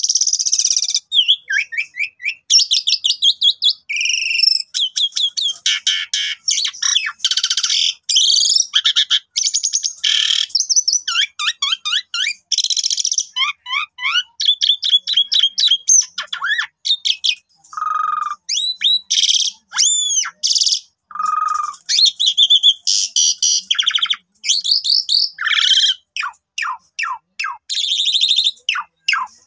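Pied starling (jalak suren) in full song: a long, loud, varied run of quick whistles, trills and harsh chattering notes with only brief gaps.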